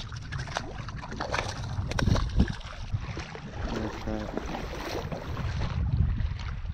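Water sloshing and splashing around legs as a person wades through shallow bay water, in small irregular splashes over a steady low rumble.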